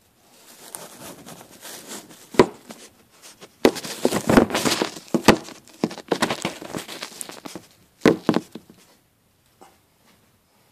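Close rustling and crackling against the microphone, with a few sharp knocks: about two seconds in, near the middle, and again near the end.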